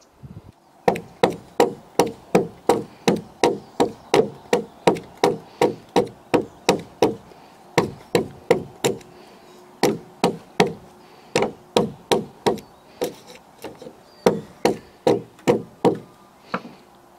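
Hatchet chopping into a peeled round-log timber: sharp wooden strokes about three a second, in runs broken by a few short pauses.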